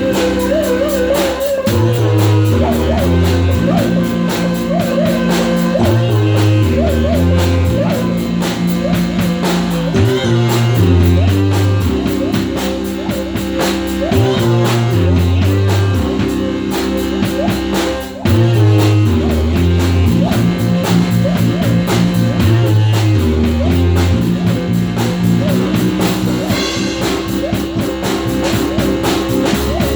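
Background rock music with guitar, drums and a steady repeating bass line.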